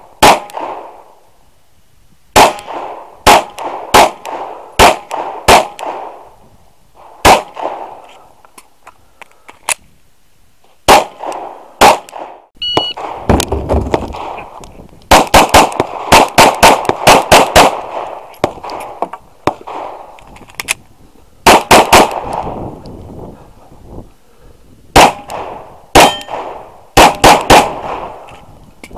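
Strings of 9mm pistol shots from a Glock 19, each sharp report trailing off in a short echo, fired in quick pairs and longer rapid runs with pauses between. A short electronic beep, typical of a shot timer's start signal, sounds a little before halfway, just ahead of a new string.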